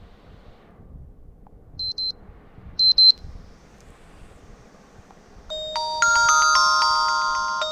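MIUI 12 phone ringtones playing as previews. Two pairs of short high beeps come about a second apart, then about five and a half seconds in a new melodic ringtone of overlapping ringing notes starts.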